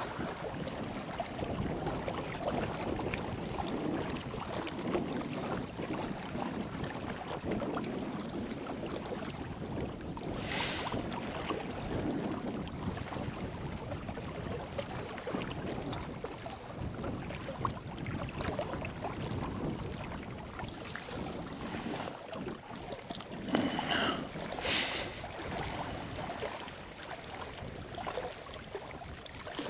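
Small waves lapping and sloshing against a rocky shoreline at the water's edge, steady throughout, with a couple of short louder sounds about ten seconds in and again around twenty-four seconds.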